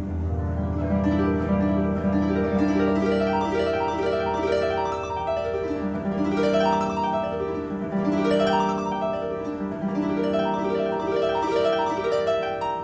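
Paraguayan harp playing quick runs of plucked notes that sweep up and down over ringing low bass notes.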